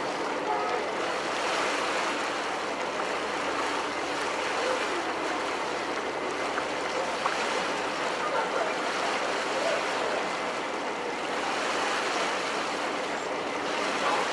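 Steady rush of water and wind aboard a moving passenger ferry under way, with a faint low hum underneath.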